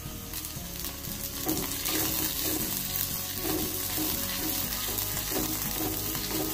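Curry leaves, chopped garlic, ginger and green chillies sizzling in hot oil in an aluminium kadai while a spatula stirs them. The sizzle grows louder about half a second in as the fresh leaves hit the oil.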